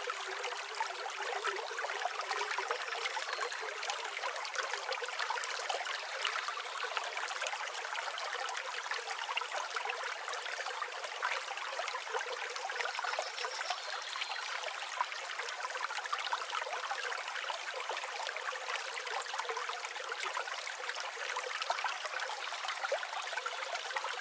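Steady running water trickling and splashing in a continuous flow, with no deep rumble and no change throughout.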